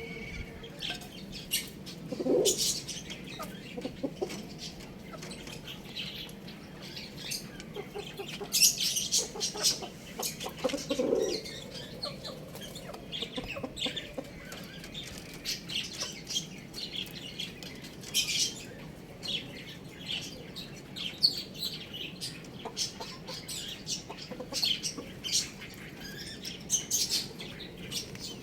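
Chickens: frequent brief flutters and scuffles with short, high chirps, and a low cluck about 2 seconds in and another about 11 seconds in.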